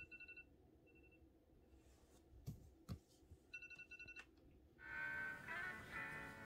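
Smartphone alarm going off in short bursts of rapid high-pitched beeps, with a couple of sharp taps between the bursts. Background music comes in about five seconds in.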